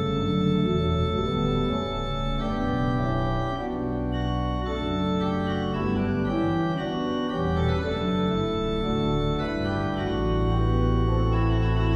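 Church pipe organ playing held chords over sustained deep pedal notes, with a fuller, louder bass coming in about ten seconds in.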